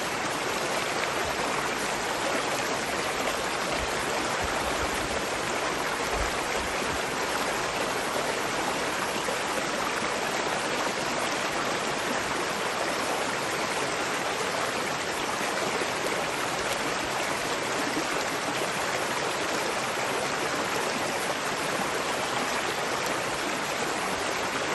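Flowing water rushing steadily, an even unbroken wash of sound with no breaks or separate splashes.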